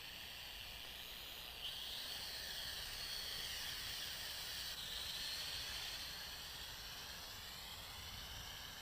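JXD 509 toy quadcopter's motors and propellers whining as it lifts off, starting about a second and a half in and wavering in pitch as the throttle changes.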